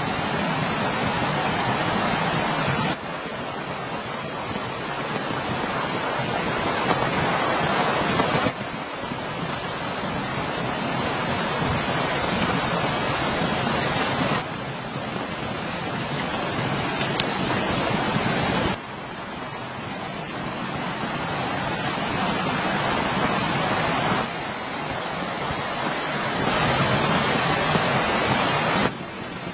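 Steady, dense hiss of heavy rain. Its level drops abruptly every four to six seconds, then slowly builds again.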